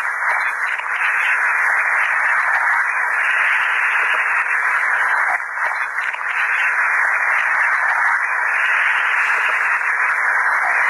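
Steady hiss of an old, narrow-band recording of Buddhist repentance chanting, heard in a pause between chanted lines; it dips briefly about five seconds in.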